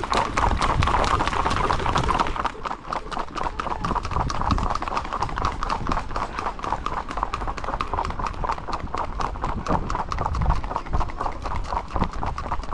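Horses' hooves striking asphalt as they are ridden at a fast gait: a quick, even, continuous clip-clop.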